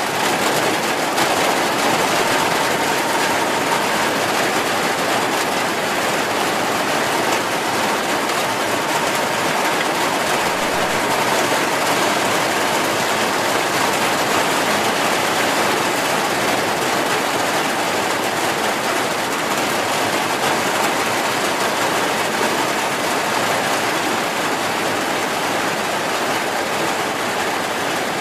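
Heavy rain falling steadily, a loud, even, unbroken hiss of water.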